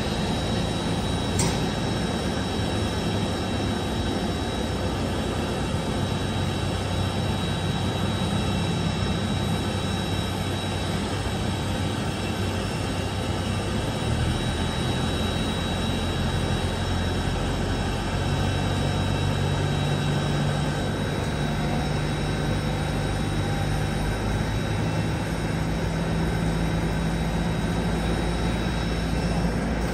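Steady jet whine and rumble of an airliner being moved by its pushback tug, with a high constant whine over a low engine hum that shifts in pitch a few times.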